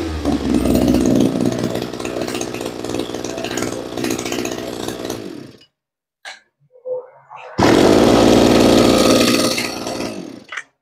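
Small two-stroke brush-cutter engine running, then cut off about halfway through. After a short pause with a couple of faint clicks it runs loudly again and dies away near the end.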